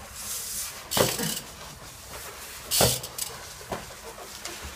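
A short hiss, then two heavy thumps about two seconds apart and a lighter knock.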